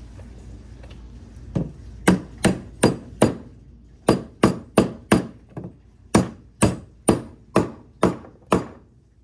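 Hammer tapping a plastic push-on axle cap onto the end of a toy ride-on car's steel axle rod to lock the wheel in place. About fifteen sharp strikes come in three quick runs of four or five, roughly two a second.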